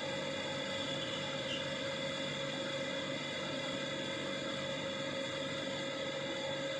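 Steady electric motor hum with a constant whine from a scale-model electric locomotive running slowly along its track.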